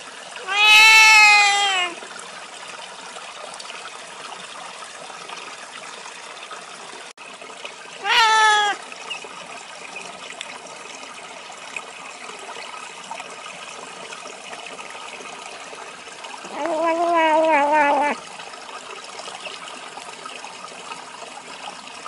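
Cat meows three times: a long meow about a second in, a short one around eight seconds, and a wavering one around seventeen seconds. Between them a small stream trickles steadily.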